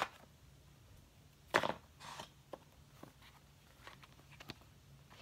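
Cardboard packaging of a phone box being handled. A short scrape of card sliding out comes about a second and a half in, with a softer rustle just after and a few light taps and clicks.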